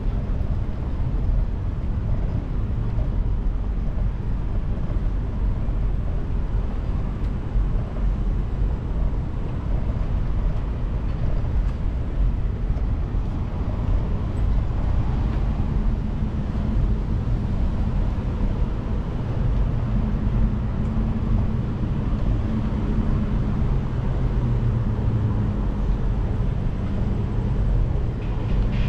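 Steady low rumble of wind and road noise during a city bicycle ride, with traffic around. About halfway through, a low engine hum from a nearby vehicle joins in.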